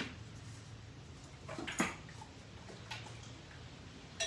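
A few knocks and clinks from handling the oily metal oil-filter canister and the old filter element, the loudest a little under two seconds in, over a steady low hum.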